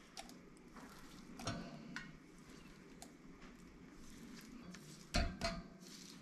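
Light knocks and clinks of a pusher working fermented pepper pulp in a chinois sieve over a bowl, a few scattered strokes with the loudest pair about five seconds in.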